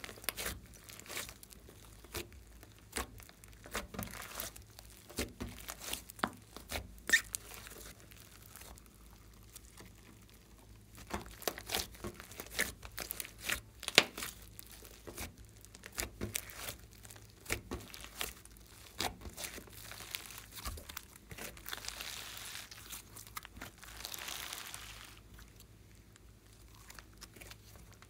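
Hands squeezing and kneading a large lump of fluffy slime mixed with foam beads: an irregular string of small crackles and pops as the slime is pressed. About three-quarters of the way through, a few seconds of steadier soft rustling as it is worked.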